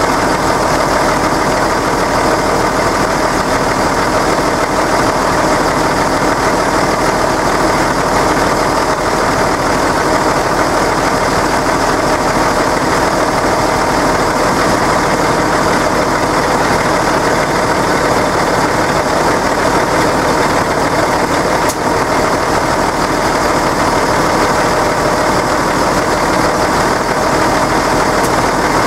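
Deutz-Fahr tractor's diesel engine idling steadily.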